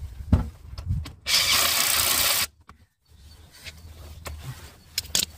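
A couple of sharp knocks, then a power tool run in one short burst: a loud, even hiss lasting about a second that starts and stops abruptly.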